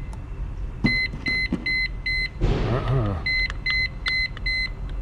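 IV infusion pump's alarm beeping: short, high, single-tone beeps about four a second, in two runs with a pause between. This is the pump sounding its "pumping latch closed" alarm because the cassette was pulled out with the pumping latch still engaged. A brief burst of noise comes in the pause, about halfway through.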